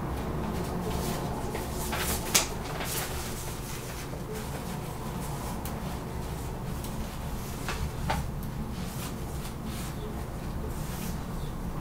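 Room tone with a steady low hum, broken by a few short clicks or knocks, the loudest about two seconds in and another near eight seconds.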